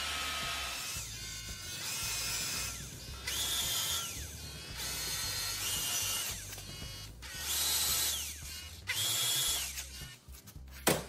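Cordless drill with a countersink bit chamfering the head bolt holes in an engine block deck, run in about six short bursts, each ending in a falling whine as the motor winds down. A sharp knock near the end.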